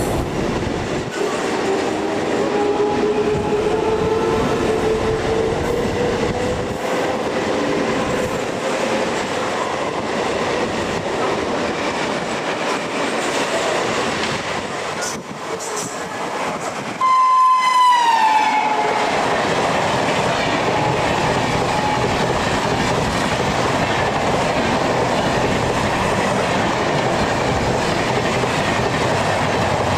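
Express train passing at speed: its horn sounds loudly about halfway through, the pitch dropping as it goes by, then the coaches rush past with a steady rumble and clickety-clack over the rail joints.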